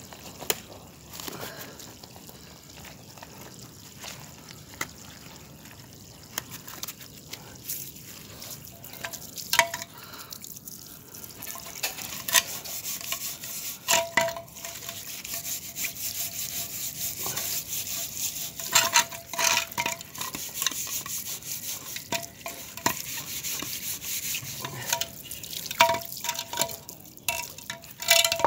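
Steel wool scrubbing a small sheet-metal engine fuel tank on wet paving while a garden hose sprays water over it, with a hiss that grows louder about halfway through. Scattered sharp knocks and clinks as the metal tank is handled against the stone.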